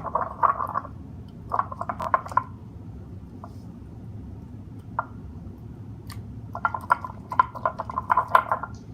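Homemade glue slime squelching as it is squeezed and mixed by hand, in three stretches of short wet pops: at the start, about a second and a half in, and again from about six and a half seconds on. The slime has just been given too much activator.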